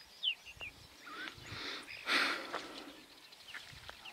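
Outdoor birds giving short, scattered chirps, with a brief rustling noise about two seconds in.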